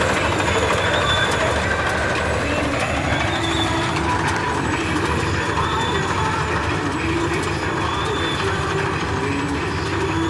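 Dasmesh 912 4x4 combine harvester, driven by a John Deere 5075E tractor, running while it harvests: the tractor's diesel engine and the threshing machinery make a loud, steady din with faint whining tones over it.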